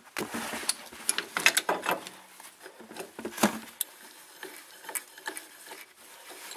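A steel C-clamp being set over a rear brake caliper and its screw turned against the piston: irregular metal clicks and knocks, the loudest about one and a half and three and a half seconds in.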